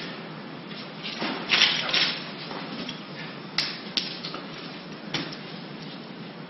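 Small handling noises over a steady hiss: a brief scrape about a second and a half in, then three sharp clicks over the next two seconds.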